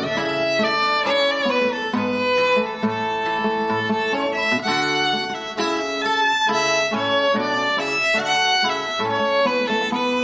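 Instrumental break in a live folk song, between sung verses: a quick melody played on a single instrument, with several notes sounding together beneath it.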